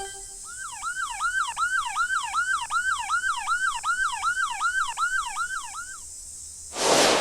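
Ambulance siren in a fast yelp, its pitch sweeping up and dropping about three times a second for about five seconds, then stopping. Near the end comes a short, louder whoosh.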